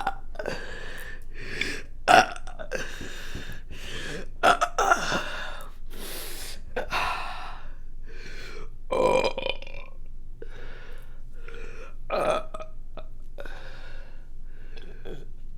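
A woman burping over and over: a quick string of short burps, with louder ones about two, five, nine and twelve seconds in.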